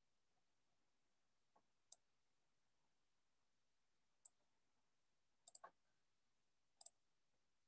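Near silence with a few faint, scattered clicks, including a quick run of three about two-thirds of the way through.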